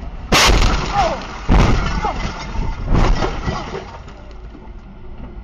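Car crash heard from inside the crashing car: a sudden loud impact of crunching metal about a third of a second in, then two more heavy impacts about a second and two and a half seconds later, the noise tailing off afterwards.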